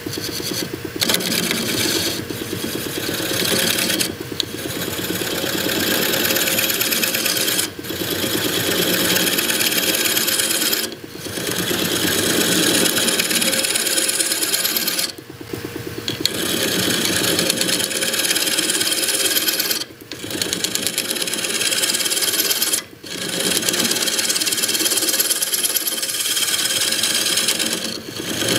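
A handheld turning tool cutting into the face of a wooden blank spinning on a wood lathe, a steady scraping rasp with shavings peeling off. It breaks off briefly about six times when the tool leaves the wood, then resumes.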